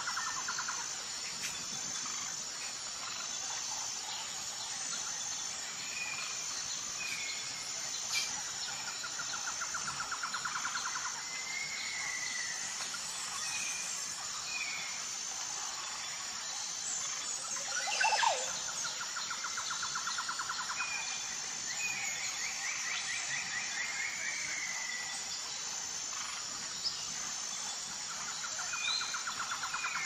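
Rainforest ambience. A steady high insect drone runs under scattered short bird chirps, and a pulsing trill comes back about every ten seconds. A loud sweeping call falls steeply in pitch a little past halfway through.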